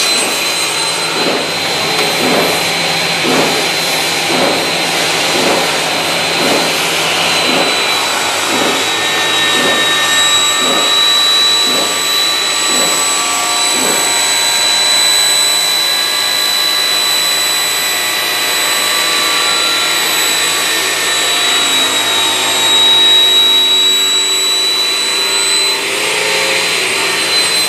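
DS A450 automatic aluminum cutting machine's saw blade cutting through a hollow aluminum tube: a loud steady whine with high ringing tones over a rushing noise. A regular pulsing, a little under two beats a second, runs through the first half and then fades, leaving the steady whine.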